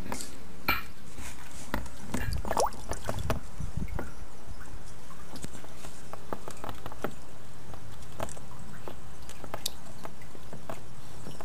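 Scattered light clicks and scrapes of Trachemys scripta slider turtles' claws and shells on the dry plastic tub and tiles, over a steady low hum.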